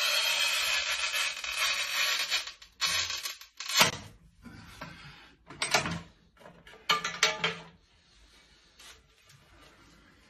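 Manual rail tile cutter scoring a ceramic tile: a continuous scraping rasp of the scoring wheel that stops about two and a half seconds in. It is followed by a few separate sharp knocks and clacks as the tile is snapped on the cutter and handled.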